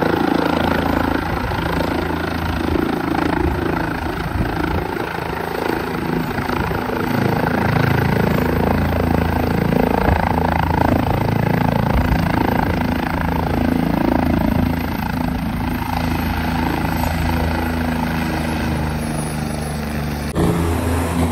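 Helicopter running close by as it hovers low and settles onto its skids, its rotor and engine making a loud, steady noise; the sound changes abruptly near the end.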